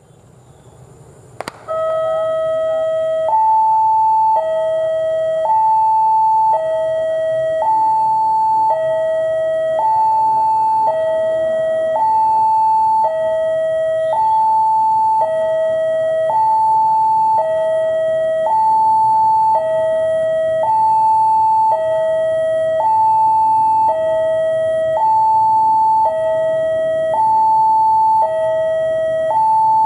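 Electronic level-crossing alarm sounding its two-tone warning, switching back and forth between a lower and a higher tone about once a second. It starts with a click about a second and a half in and signals an approaching train.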